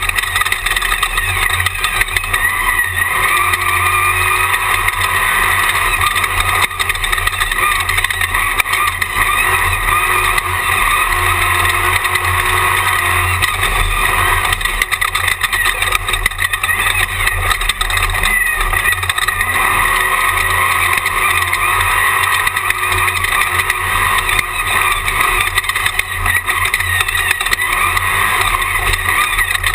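Jimco Class 1 desert race car under way, its engine running steadily under load, mixed with wind and chassis noise as heard from the in-car camera.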